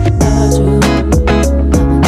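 Background music: plucked guitar over a steady bass and beat.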